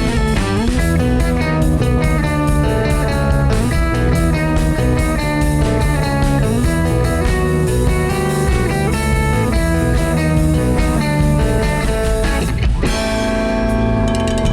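Live band playing a rock song led by electric guitar, with bass and a steady beat. Near the end the beat stops and a chord is held.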